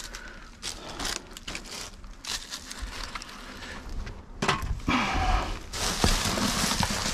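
Rubbish being rummaged through by hand in a dumpster: scattered rustles and knocks, then a louder continuous rustling noise from about two-thirds of the way in.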